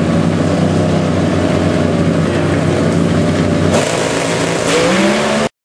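Chevrolet Cobalt Pro Stock drag car's naturally aspirated V8 running loud and steady at the starting line. The engine note changes about four seconds in and rises in pitch near the end, then the sound cuts off suddenly.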